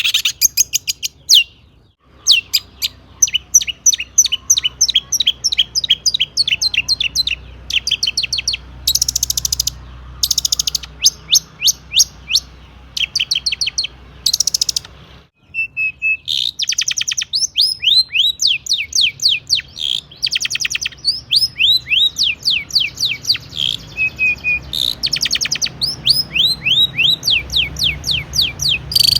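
Long-tailed shrike (cendet) singing nonstop: quick runs of falling high whistled notes, broken every few seconds by short harsh rasping bursts. It is the varied 'full isian' song, packed with phrases borrowed from other birds.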